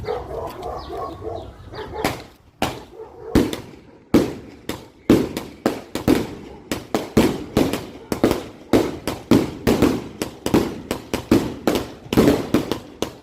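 A 100-shot consumer firework cake firing: sharp bangs in quick succession, about two a second, starting about two seconds in.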